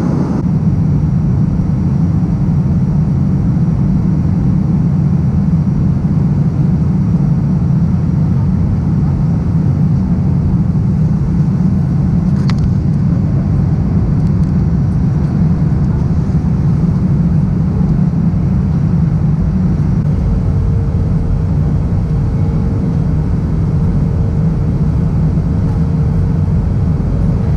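Steady low rumble of a Boeing 737-8 MAX cabin on final approach: airflow and CFM LEAP-1B engines heard from a window seat over the wing. A single short click sounds about halfway through, and a steady hum joins about two-thirds of the way in.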